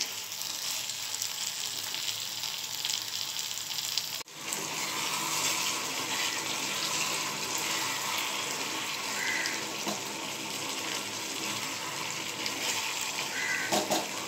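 Okra and potato curry sizzling in a frying pan while it is stirred with a wooden spatula: a steady frying hiss that drops out for a moment about four seconds in, then comes back louder.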